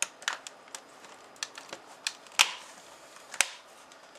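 Plastic snap clips of a Samsung R480 laptop's screen bezel clicking free as the bezel is pried off by hand: about ten sharp, irregular clicks, the loudest about two and a half seconds in.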